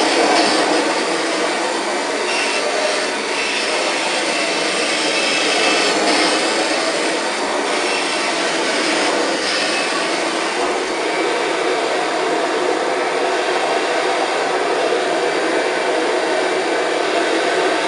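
1999 Kirby G5 upright vacuum cleaner running steadily as it is pushed back and forth over a shag rug and carpet, its sound swelling slightly with the strokes.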